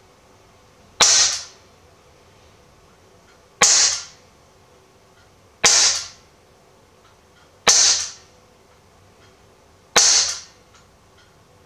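Cybergun AK-74 CO2-powered BB airgun firing five single shots about two seconds apart, each a sharp crack that dies away within half a second. The shots are pretty loud, but not harsh.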